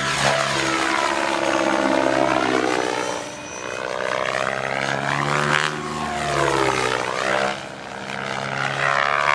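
Electric Protos Max Leggero RC helicopter flying hard 3D: the rotor and motor whine sweeps down and back up in pitch again and again, with sharp bursts of blade noise about halfway through and near the end.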